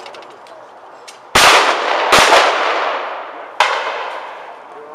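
Shotgun shots at clay targets: two loud shots in quick succession a little over a second in, a slightly lighter shot about a second and a half later, and another loud shot just at the end. Each cracks sharply and dies away in a long echoing tail.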